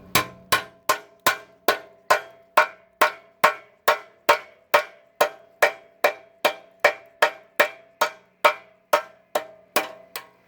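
Steady hand-hammer blows on hot steel over an anvil, about two and a half a second, each with a metallic ring that carries on between strikes. The blows are flattening the bar on the anvil.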